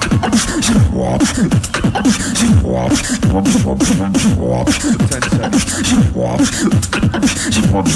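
Solo beatboxing into a microphone: a fast, steady beat of sharp snare-like clicks over repeated falling bass sweeps.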